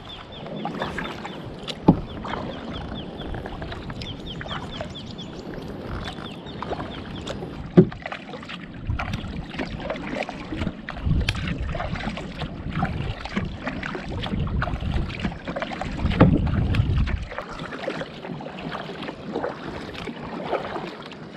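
Kayak paddling: the paddle blades dip and splash in the water stroke after stroke, with two sharp knocks, one about two seconds in and one about eight seconds in. Wind rumbles on the microphone through the middle stretch.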